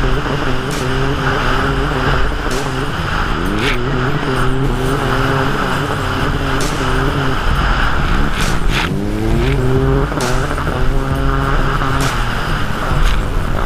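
Sea-Doo racing jet ski engine running hard at race speed, heard from on board. Its revs waver as the craft skips over the chop, and twice dip and climb back, about four and nine seconds in, with occasional sharp knocks.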